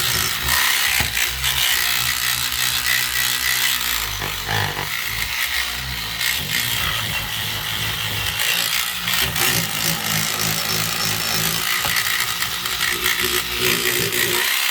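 Battery-powered SonicScrubber cleaning brush running, its buzzing motor and oscillating bristle head scrubbing against a bathroom tap in a steady, continuous hiss.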